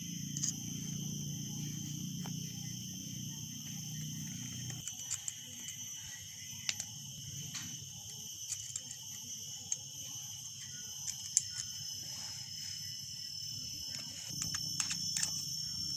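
Scattered small clicks and knocks of angle grinder parts being handled and fitted together as the armature goes back into its housing, over a steady high background drone; a low hum stops about five seconds in.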